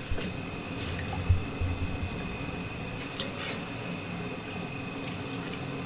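Wooden spatula stirring milk and water through a stew in a cast-iron pot, a soft sloshing with a few light knocks of the spatula in the first two seconds.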